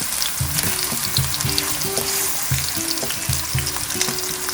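Plantain slices frying in hot oil in a pan: a steady sizzle with many small crackling pops. A low, on-and-off hum runs underneath.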